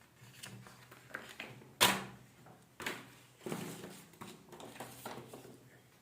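A series of irregular knocks and clicks, the loudest a sharp knock about two seconds in.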